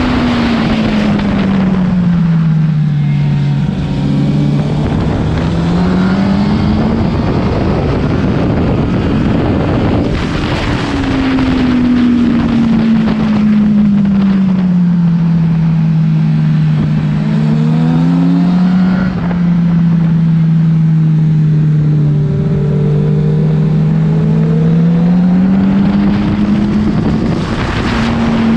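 Honda CBR1000's inline-four engine heard while riding, its pitch sliding slowly down as the throttle eases off and climbing back up under acceleration, twice over, with a small drop in pitch a little past halfway. A steady rush of wind runs underneath.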